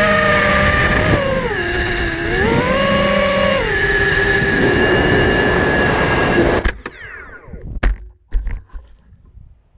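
FPV quadcopter's electric motors whining loudly in flight, the pitch dipping and rising again with the throttle. About seven seconds in the motors cut out suddenly, followed by a couple of thumps and rustling as the quad hits the grass.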